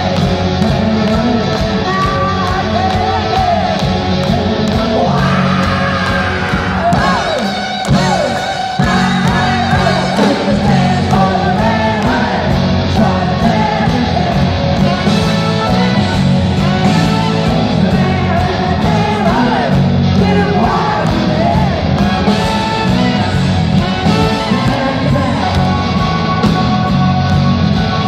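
Live rock band playing loudly, with electric bass, guitar, keyboards and drums and a woman singing and yelling over it, recorded from among the audience. The band drops back briefly about eight seconds in, then comes in again at full volume.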